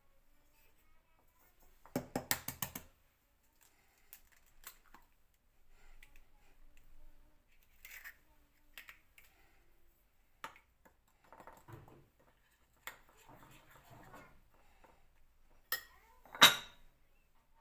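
Kitchen utensils clinking and knocking against dishes. There is a quick rattle of clicks about two seconds in, then scattered faint clicks and soft handling noise, and two sharp knocks near the end, the second the loudest.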